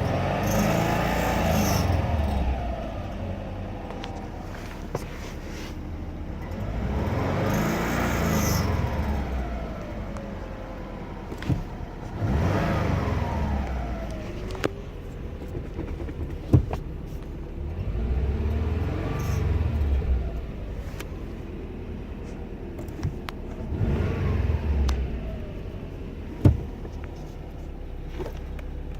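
A 2010 Subaru WRX's turbocharged flat-four engine is revved in about five swells, each falling back to idle, with a few sharp clicks between them. The car has a squeak at idle that goes away with the clutch pushed in, which the owner suspects is a clutch throwout bearing.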